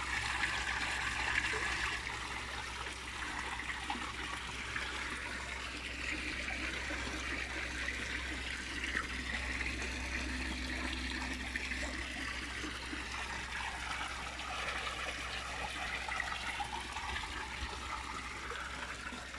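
Water in a koi pond trickling and churning steadily, with a steady low hum underneath.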